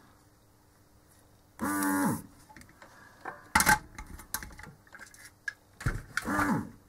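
Electric vacuum desoldering gun's pump buzzing in a short burst with a sucking hiss about a second and a half in, its pitch falling as it stops, as it sucks molten solder off the SATA connector pins. Small clicks and knocks of handling follow, then another short buzz near the end.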